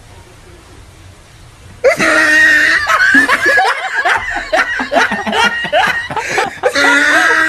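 Human onlookers break into loud, high-pitched laughter about two seconds in, after a quiet start, and keep laughing with many overlapping bursts.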